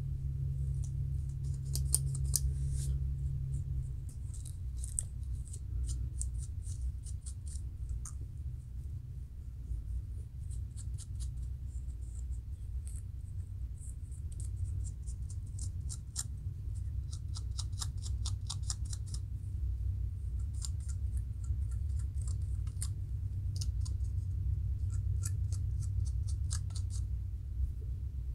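Fingernails and a plastic tail comb scratching at the scalp, lifting dry dandruff flakes, in runs of rapid crisp scratches that start and stop every second or two, over a steady low hum.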